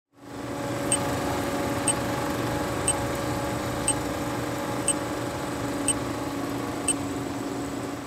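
Film projector running with a steady mechanical whir and hum, fading in at the start, with a short high blip once a second, seven in all, marking the film-leader countdown.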